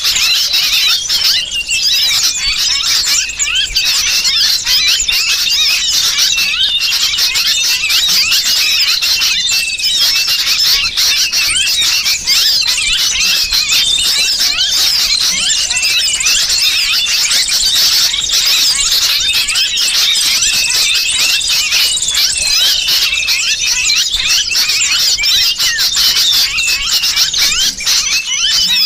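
Dense, unbroken chorus of agitated small-bird chirps mixed with the high squealing distress calls of a trapped sooty-headed bulbul: a lure call for drawing small birds in.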